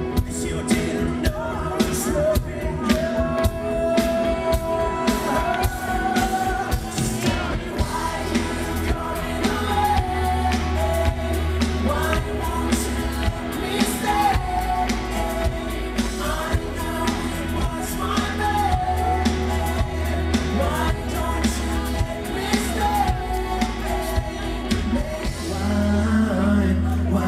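Live pop-rock band playing: a male lead singer sings a melody over electric guitar, a pulsing bass line and a steady drum beat.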